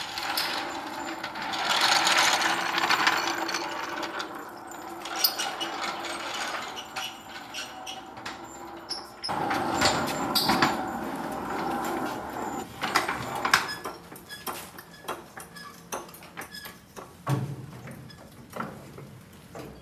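Metal shop clatter as a steel floor jack is wheeled across a concrete floor: two long stretches of steady rattling and rolling, then scattered clanks and knocks.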